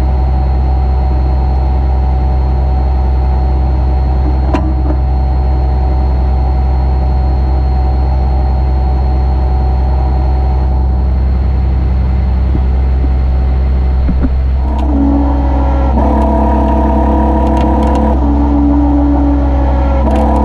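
A tow truck's engine running at a steady idle, a loud low rumble, with a single sharp click about four and a half seconds in. Near the end, background music with sustained tones that change every second or two comes in over it.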